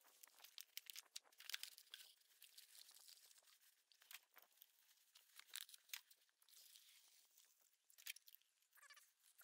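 Faint crinkling and crackling of plastic packaging, an irregular run of small crisp clicks and rustles.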